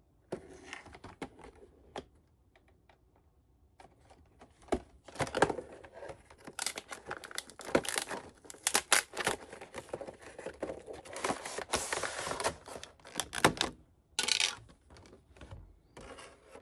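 Clear plastic shrink wrap being torn and peeled off a cardboard collection box: crinkling and crackling with many sharp snaps, in uneven bursts that are densest through the middle, with a couple of short pauses.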